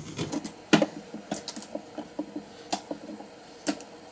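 A blade carving into a raw carrot: irregular crisp clicks and taps, with a few louder knocks.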